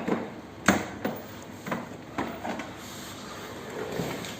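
Scattered clicks and knocks of plastic and metal parts handled during assembly: a ride-on toy bike's wheel and washers being fitted onto its axle rod. The sharpest knock comes about half a second in.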